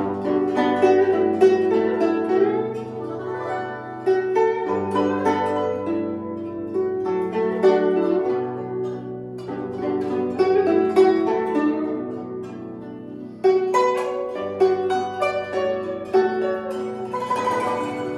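Two guzheng (Chinese zithers) playing a duet: a dense plucked melody over low bass notes that change every second or two. A louder passage comes in suddenly about thirteen seconds in.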